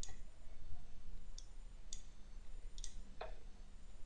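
Computer mouse clicking, about five single sharp clicks spread over a few seconds, one of them duller, over a faint steady low hum.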